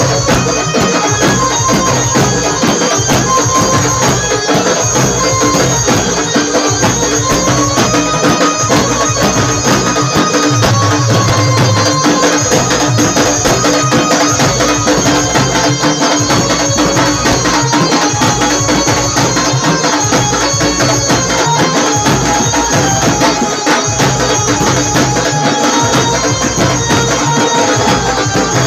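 Maharashtrian banjo party band playing loud, continuous music: an amplified banjo melody over steady, fast drumming on dhol and side drums.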